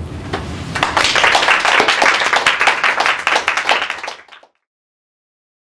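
Audience applauding with dense, quick hand claps, starting about a second in, then cut off suddenly.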